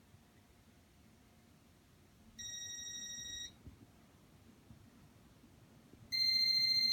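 Electronic beeps from a 1985 Casablanca Panama fan's Intellitouch control, two steady tones about a second long, about three and a half seconds apart. The second beep is higher and louder than the first, signalling the change of speed setting as the fan is set to high.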